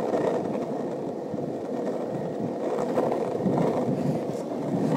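Skateboard wheels rolling fast down an asphalt road, a steady rolling noise with no braking.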